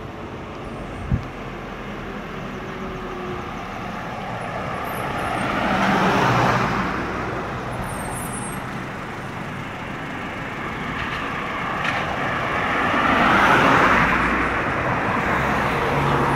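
Two cars pass on the road one after the other, each a rush of tyre and engine noise that swells and fades, the first about six seconds in and the second about thirteen seconds in. A single sharp click about a second in.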